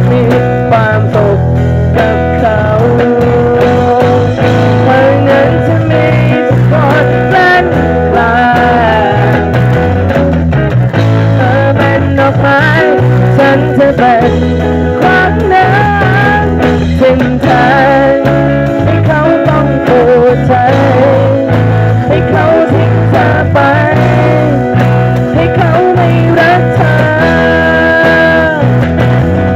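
Small live band playing an instrumental passage: a guitar lead with sliding, bent notes over a bass guitar line and drums struck with sticks.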